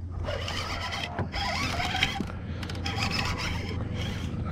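Baitcasting reel being cranked while fighting a hooked largemouth bass, a steady scratchy rubbing, mixed with hands brushing close to the microphone.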